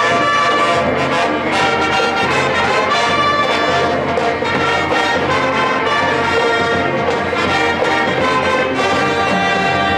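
College marching band's brass playing a tune in loud, sustained chords.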